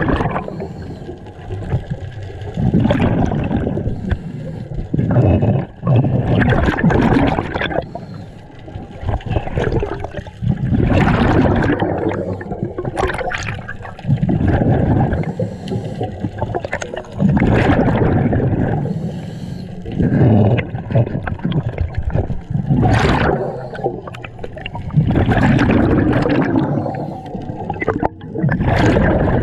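Scuba diver breathing through a regulator underwater: gurgling bursts of exhaled bubbles alternating with breaths drawn through the regulator, repeating about every three seconds.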